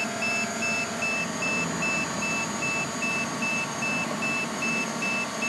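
Repeating electronic warning beep from a drone's control app or remote, a single high tone pulsing about two and a half times a second while the drone descends to land, over a steady hum.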